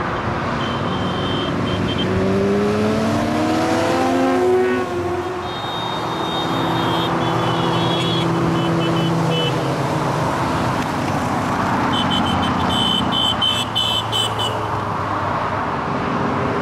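A stream of motorcycles passing on a dual carriageway, their engines and tyres blending into continuous traffic noise. A few seconds in, one bike's engine rises in pitch as it accelerates. A high, steady beeping comes and goes three times.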